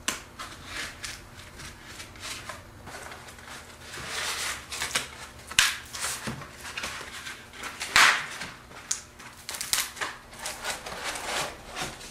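Pink foam insulation mold being cut apart and the papier-mâché shell of brown paper and flour paste worked off it: irregular scraping and crackling strokes, the loudest around six and eight seconds in.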